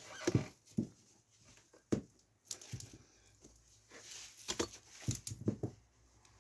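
Scattered knocks, clicks and rustles of PC power-supply cables and their plastic connectors being handled and set down, about half a dozen sharp knocks in all.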